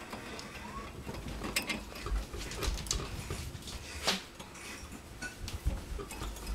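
Hamster gnawing and clambering on the metal wire bars of its cage: irregular metallic clicks and rattles, with one louder clack about four seconds in.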